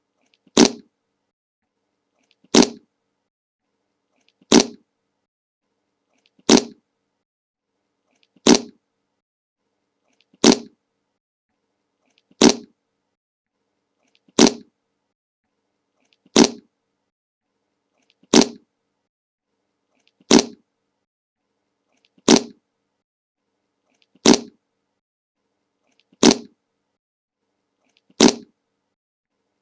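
A short fart sound effect, looped over and over, one brief identical fart about every two seconds with silence between.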